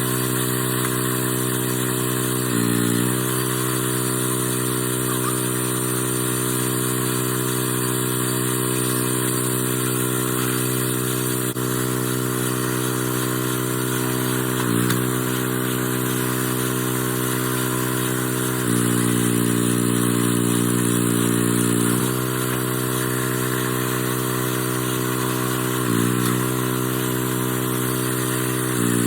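Small gasoline engine of a log splitter running steadily. Its pitch dips briefly three times, and for a few seconds about two-thirds of the way through it runs louder at a different speed.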